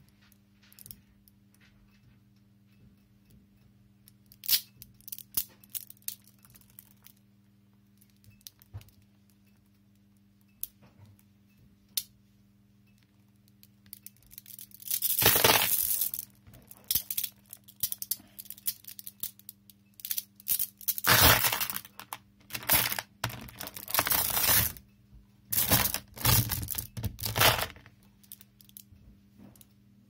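Steel balls clicking and rattling against each other as hands pull them off a clump held by a strong magnet, some dropping into a plastic basket. Scattered single clicks at first, then from about halfway several loud bursts of dense rattling, each a second or two long.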